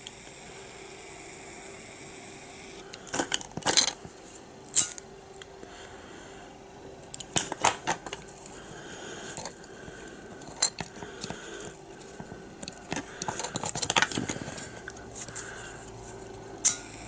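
Scattered light clicks and clinks of small plastic and metal parts and tools being handled while wire insulation on a door handle alarm is stripped, over a faint steady hum.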